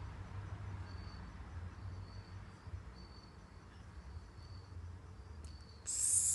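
Insects chirping in short, high-pitched trills over a low, steady background rumble. Near the end, a loud hiss starts suddenly.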